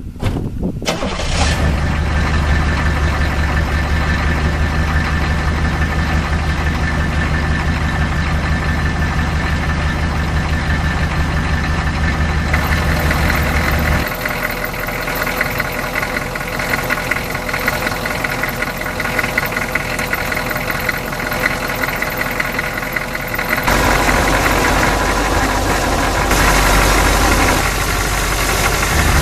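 1982 Oldsmobile Delta 88's 350 diesel V8 idling steadily. It is heard first from inside the cabin with a strong low hum, then from in front of the car, and louder up close at the grille for the last few seconds.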